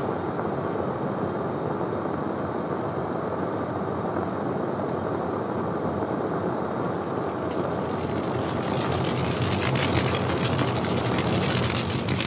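A machine running with a steady mechanical drone. About eight seconds in, a harsher, rattling clatter joins and the low hum grows stronger.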